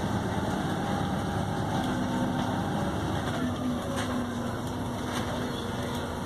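Volvo B7RLE bus's six-cylinder diesel engine running, heard from inside the passenger saloon as a steady low rumble with a faint whine that shifts slightly in pitch.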